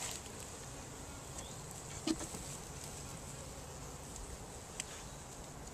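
Faint steady buzzing of a large cluster of honey bees in an open hive box. A light knock comes about two seconds in and a small click near the end, as wooden frames are set in among the bees.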